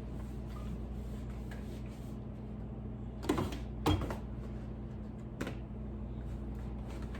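Knocks and clatter of a refrigerator shelf being handled and worked loose. Two louder knocks come a little over three seconds in, about half a second apart, and a lighter one follows about a second and a half later, over a steady low hum.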